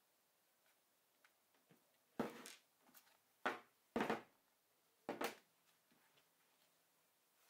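Steel pattern weights being lifted off a vinyl panel and set down on a worktable: four short knocks spread over a few seconds, with a little rustle of vinyl.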